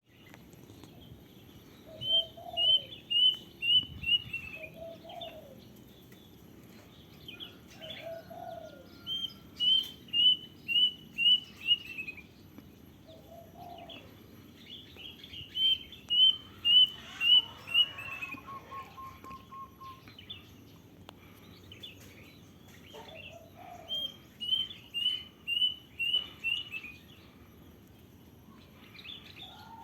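Kedasih (plaintive cuckoo) singing its song four times: each a quick run of six to eight clear whistled notes that step slightly down in pitch. A few short lower calls from another bird come between the songs.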